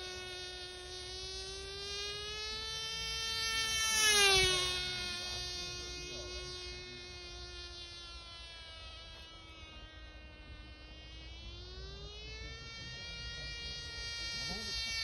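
Cox TeeDee .020 glow engine of a small model airplane, a high, thin buzz in flight. Its pitch drops sharply as the plane passes close about four seconds in, where it is loudest. It then fades and its pitch climbs again as the plane comes back near the end.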